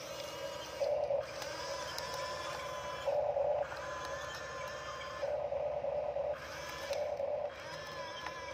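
Electric gear motors of a Huina radio-controlled toy excavator whining as the boom, arm and tracks move, in about five stop-start runs where a higher whine cuts in over a steady lower hum and then cuts out.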